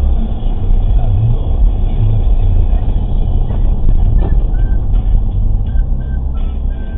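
Loud, steady low rumble of a moving vehicle, engine and road noise, cutting in suddenly at the start.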